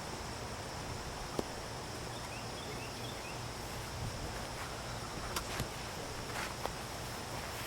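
Quiet outdoor background: a steady faint hiss with a constant high thin tone, broken by a few short faint clicks and taps.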